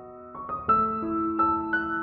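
Soft background music of slow, sustained keyboard notes, a new note struck every half second or so.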